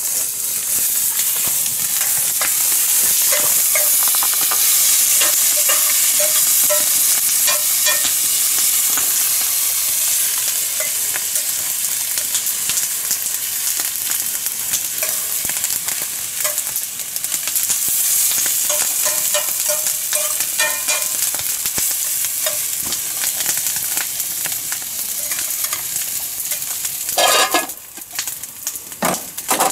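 Food sizzling in a frying pan on a Primus camp stove, with the light taps and scrapes of a utensil stirring it. The sizzle drops away near the end.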